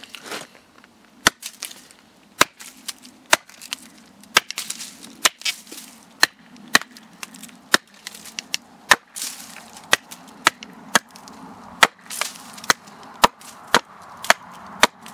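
Hand-forged carving axe chopping into a split birch log held upright on a chopping block, roughing out a spoon blank: a string of sharp chops, about one to two a second.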